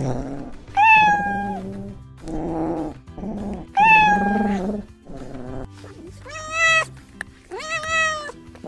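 Domestic cat meowing repeatedly: four clear drawn-out meows, each under a second, with quieter lower calls between them.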